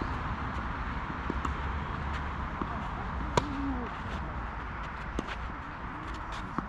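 Tennis ball struck by rackets in a rally, heard as sharp pops, the loudest about three and a half seconds in and several more near the end, with footsteps on the court and distant voices over a steady background hiss.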